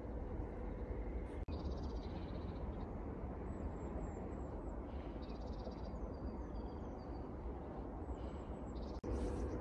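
Outdoor ambience: a steady low rumble with birds calling now and then in short, rapid chattering calls. The sound drops out for an instant twice, at about 1.5 s and 9 s.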